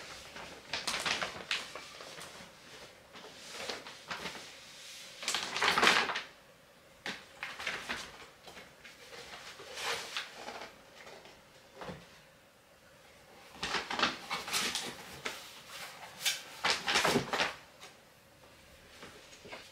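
Crinkling and rustling of a large woven plastic IKEA shopping bag as boxed items are pulled out of it, with light knocks of cardboard boxes set down on a table. The handling comes in several bursts, loudest about six seconds in and again near the end.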